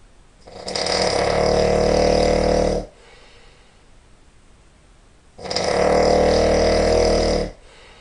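A man snoring loudly in his sleep: two long snores, each a little over two seconds, with a quiet pause of about two and a half seconds between them.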